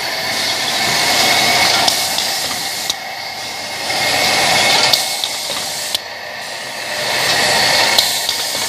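Machinery of a PVC refrigerator door gasket production line running, with a steady hiss that swells and fades and sharp clicks every second or two.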